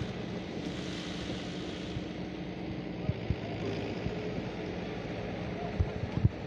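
A steady low motor-like hum under a haze of noise, with a few short sharp knocks in the second half, most of them near the end.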